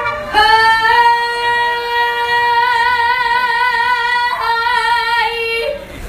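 A woman's ranchera singing voice through a handheld microphone, holding one long high note with vibrato for about four seconds, then moving to a second, shorter note that ends near the end.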